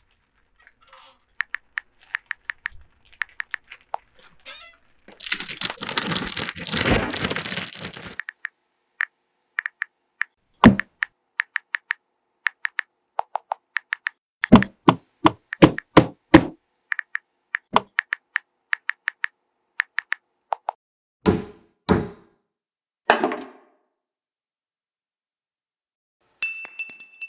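Foley sound effects. Runs of small clicking taps are broken by a loud rushing noise lasting about three seconds, one sharp knock, a quick run of thuds and three more spaced thuds, with a glassy ringing clink starting near the end.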